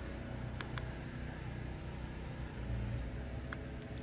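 Steady low rumble of motor traffic, with three short sharp clicks: two about half a second in and one near the end.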